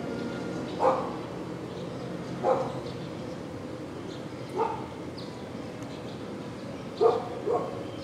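A dog barking in short single barks, five in all, the last two close together about seven seconds in, over a steady background hum.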